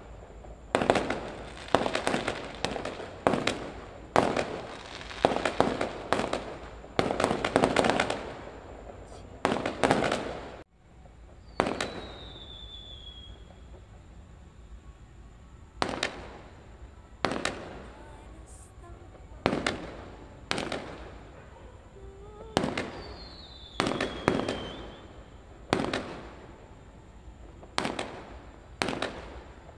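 Aerial sky-shot fireworks bursting overhead: a rapid run of bangs for about the first ten seconds, then single bangs every second or two. A high, falling whistle sounds twice.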